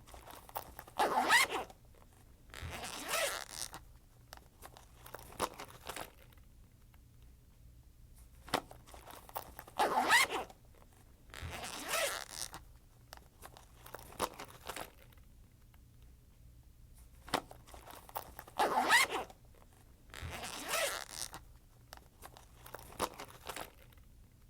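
Backpack zipper being run, the same pattern three times: a sharp click, a quick loud zip about a second long, then a second, softer zip and a few small clicks and rustles.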